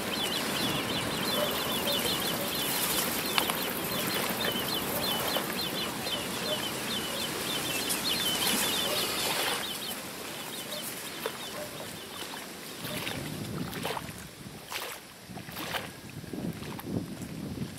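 Birds at a duck pond: rapid, high-pitched chirping or peeping runs for about the first nine and a half seconds alongside soft, low duck calls, over a steady background hiss. After that it turns quieter, with only a few scattered clicks and calls.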